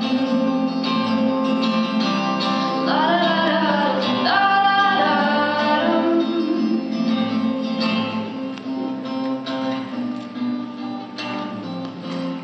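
Acoustic guitar strummed steadily, with a woman's sung vocal line gliding up and down between about three and five seconds in; the guitar carries on alone afterwards.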